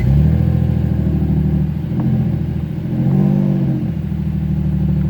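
2007 Infiniti G35's 3.5-litre V6, just started with the push button, idling, its revs rising briefly about three seconds in.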